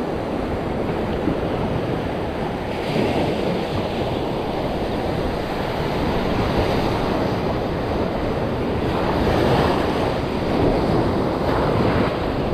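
Sea surf washing onto the beach in a steady rush, swelling a little as waves break, with wind buffeting the microphone.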